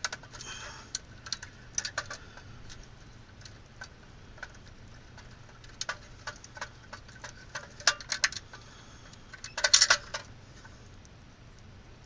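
Scattered small metallic clicks and clinks from hands working a sheet-metal electrical disconnect box and its wiring, with a quick burst of louder clicks about ten seconds in.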